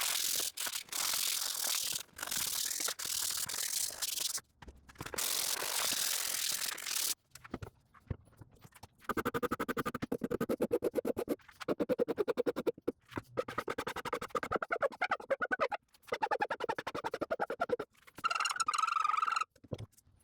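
Hand filing of a wooden leg's corner: a few long, hissy strokes with short pauses, then from about nine seconds in a quicker run of short, scratchy back-and-forth strokes with a slight ringing tone, as the sharp corner is rounded over.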